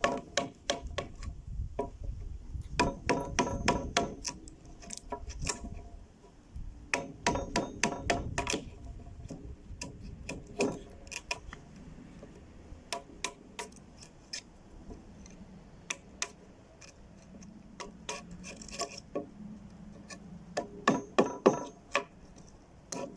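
Quick runs of hammer taps on a square file driven into a drilled-out mortise in wood, knocking out the waste to square the hole. Each tap rings a little, metal on metal. The taps come in clusters with short pauses between.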